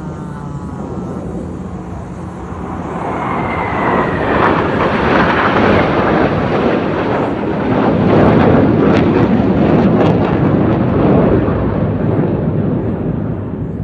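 Display aircraft flying past in an air show: a dense engine noise swells, with a brief falling whine early on, is loudest about two-thirds of the way through, and then eases off.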